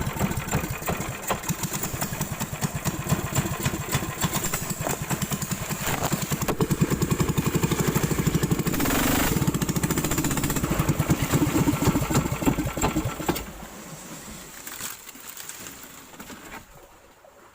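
A small engine running loudly and steadily close by, with a rapid pulsing beat, then dropping away sharply about thirteen seconds in and fading out.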